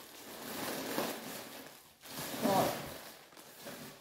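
Rustling and crinkling of packaging as a parcel is unwrapped by hand.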